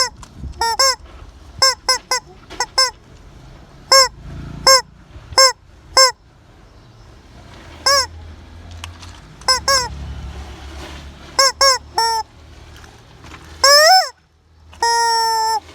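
Rubber squeeze chicken toy squawking each time it is squeezed: about twenty short, loud, honking squeaks at irregular intervals, some in quick bursts of two or three, then a longer rising squawk and a held squawk of nearly a second near the end.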